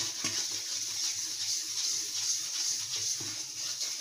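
Butter-and-flour roux sizzling in a nonstick frying pan while a wooden spatula stirs it, a steady hiss with faint scraping.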